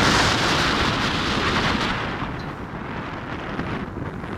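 Wind buffeting the microphone in the open bed of a moving pickup truck, a heavy rumbling rush mixed with road noise; it eases about halfway through.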